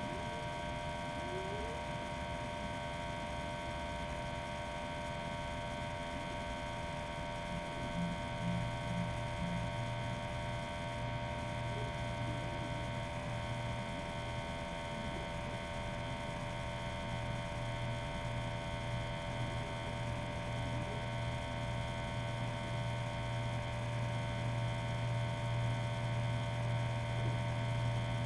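Steady electrical hum with several fixed whining tones; a deeper hum comes in about eight seconds in and stays.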